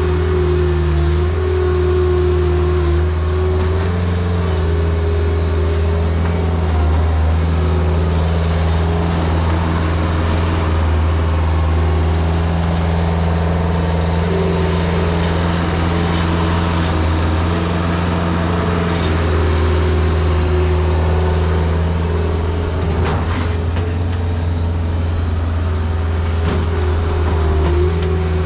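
New Holland L553 skid steer loader's diesel engine running hard while the machine digs into a sand and dirt bank. The engine pitch shifts slightly a few times as the load changes.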